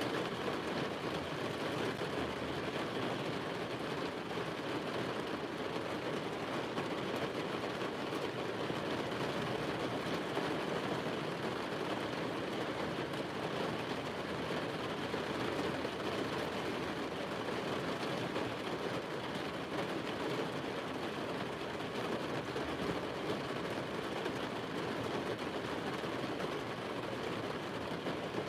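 Heavy rain beating steadily on the roof of a car, heard from inside the cab.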